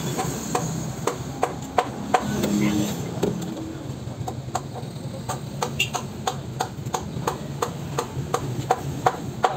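Light, sharp clicks repeating evenly, about three a second, over a low background hum.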